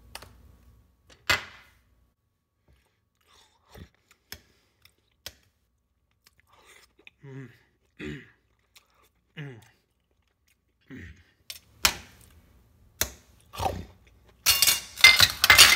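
Fast-forwarded eating: scattered short clicks and clinks of a knife and fork on a plate with bits of chewing, ending in a louder run of clatter and scraping.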